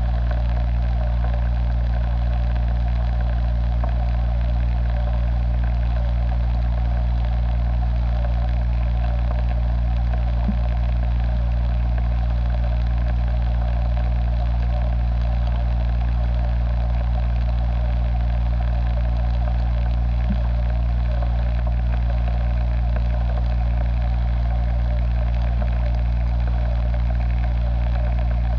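A steady, unbroken machine hum: a strong low drone under a buzzing mid-pitched band, with no change in pitch or level.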